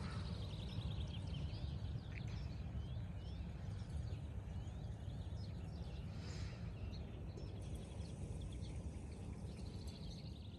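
Small birds chirping and twittering, with short trills near the start and near the end, over a steady low rumble.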